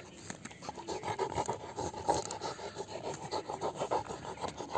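Rapid, uneven scraping and rasping against the hard woody shell of a stone apple (bael fruit), with small sharp clicks, as the shell is worked at to break it open.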